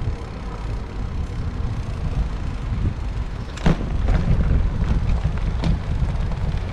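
Wind buffeting the microphone of a bike-mounted camera while riding, heard as a steady low rumble, with rolling tyre noise. A few sharp clicks from the bike on the path come on top, the loudest a little over halfway through.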